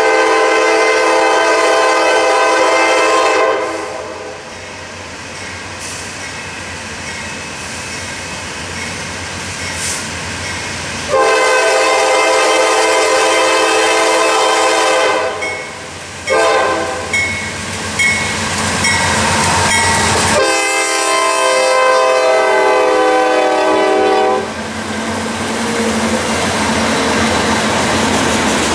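Norfolk Southern GE C40-9W diesel locomotive sounding its air horn as the train approaches, in a long, long, short, long pattern: the standard signal for a grade crossing. Near the end the locomotives pass close by, followed by the rumble and clatter of freight car wheels on the rails.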